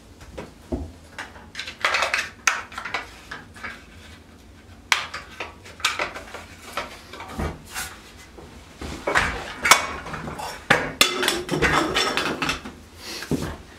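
Hand ice auger being sharpened and handled: irregular short scraping strokes of a sharpener on the steel blades, mixed with metallic clinks and knocks of the auger and tools against a wooden table.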